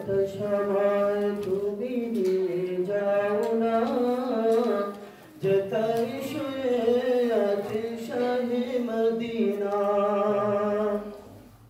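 Qur'an recitation by a single voice, chanted melodically with long held notes, in two phrases with a breath about five seconds in.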